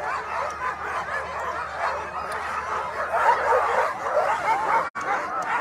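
A sled dog team of Alaskan huskies yipping, barking and whining together in a dense, overlapping chorus, the sound of dogs excited and eager to run at a race start. The audio drops out for an instant near the end.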